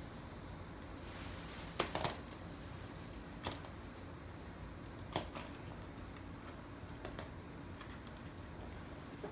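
An air-conditioner remote control being handled: a handful of sharp clicks and taps scattered through, two close together about two seconds in, over a steady low hum.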